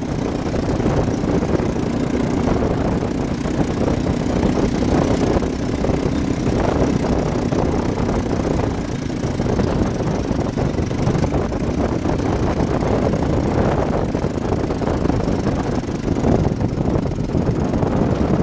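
Vehicle engine running steadily while riding over beach sand, over a continuous rushing noise.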